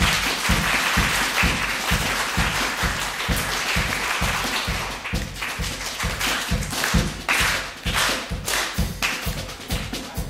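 A group doing body percussion: a steady beat of low thumps, about three a second, with many hands clapping over it, densely for the first half and then as separate claps.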